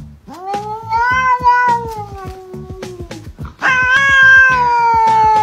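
A cat giving two long, drawn-out meows, each about three seconds and slowly falling in pitch, over background music with a steady beat.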